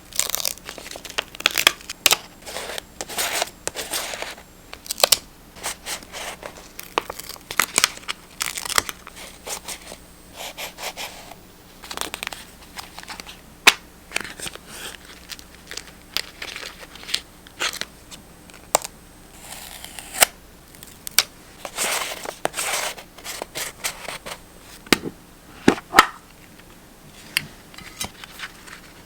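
Paper being handled for journal decorating: a string of short tearing, rustling and crinkling strokes with sharp clicks in between.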